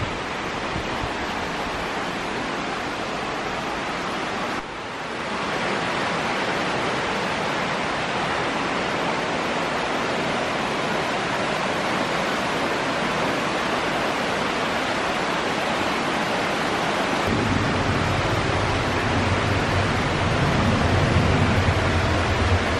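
Steady rushing of a mountain stream running over rock cascades, a continuous hiss that dips briefly about four and a half seconds in. A low rumble joins it near the end.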